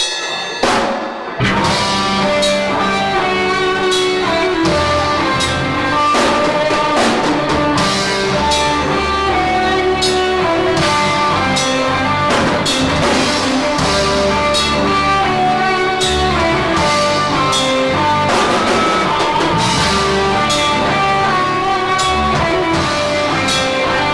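Live rock band playing an instrumental intro: a few sharp hits at the start, then the guitar and drum kit come in together about a second and a half in, over a heavy bass. It is loud and rough-sounding, recorded right by the PA speakers.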